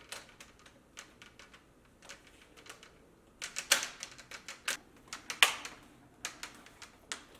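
Plastic screen bezel of an MSI GE62 laptop being lined up and pressed onto the lid: a string of small sharp plastic clicks and snaps as its clips catch, coming thickest about halfway through.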